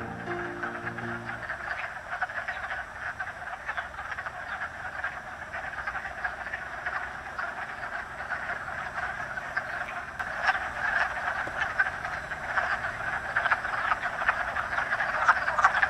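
Breeding chorus of wood frogs in a vernal pool: many males giving short, duck-like clucking calls that overlap into a continuous clatter, growing louder in the second half.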